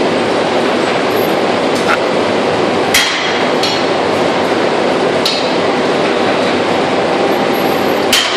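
Loud, steady machinery din in a factory hall, with several sharp metallic clinks now and then, the loudest about three seconds in and near the end.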